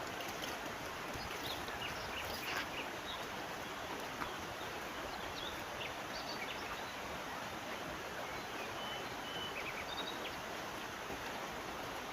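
Steady rushing of river water. A few faint short clicks and brief high chirps sound over it now and then.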